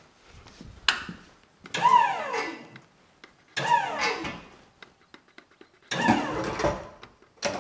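Electric lift stacker's motor run in short jogs: three bursts that each start sharply and fall in pitch as the motor winds down, with a click just before the first.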